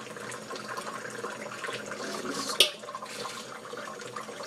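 Dishes being washed by hand at a kitchen sink: tap water running, with light clinks and one sharp clatter about two and a half seconds in.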